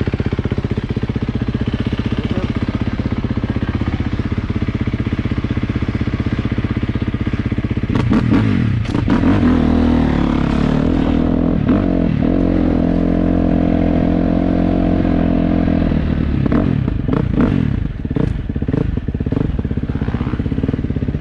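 Dirt bike engine running steadily, then about eight seconds in it is opened up and pulls harder with shifting pitch and some clattering knocks. It eases off again a few seconds before the end, with more knocks.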